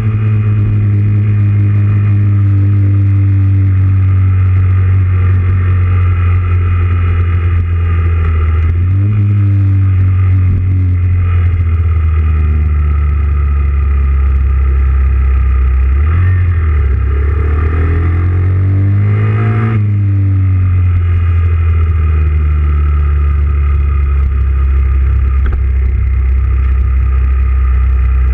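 Honda Grom's 125 cc single-cylinder engine running under the rider, heard from a camera on the bike. Its pitch rises and drops a few times with throttle and gear changes, with a longer rise and fall about two-thirds of the way in.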